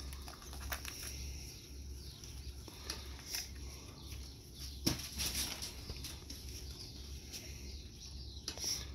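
Husky gnawing a small plastic Easter egg: scattered faint clicks and scrapes of teeth on plastic, with one sharper click about five seconds in, over a low steady rumble.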